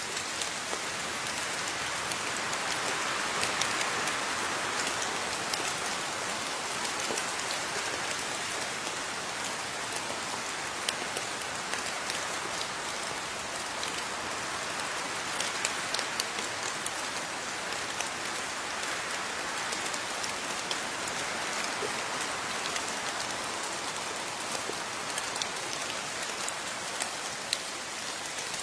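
Steady rain falling, with a dense hiss and many individual drops ticking on surfaces; it swells slightly a few seconds in and again about two-thirds of the way through.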